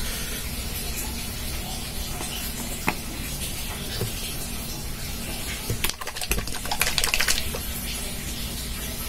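Handling noise from a small glass bottle being held and turned in the hands, over a steady low hum: a couple of single light clicks, then a quick run of clicks and crackles about six to seven seconds in.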